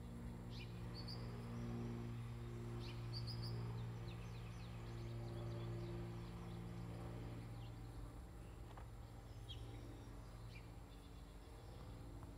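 Small birds giving short, high chirps now and then, over a steady low hum.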